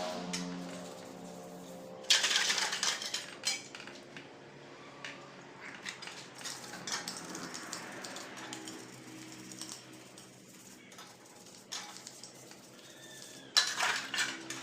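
Metal tools and parts clinking and clattering during motorcycle engine work, with a louder clatter about two seconds in and another near the end, and scattered light clicks in between.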